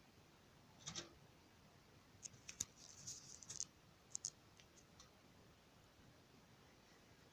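A few faint clicks and short rattles from a tape measure being handled while measuring the extended mount: one click about a second in, a quick cluster from about two seconds, and a last pair about four seconds in.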